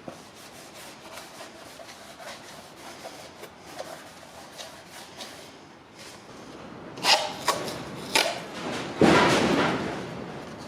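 Car parts being handled and rummaged through in a parts box: light clicks and rustles, then several sharper knocks about seven seconds in and a longer scraping rub near the end.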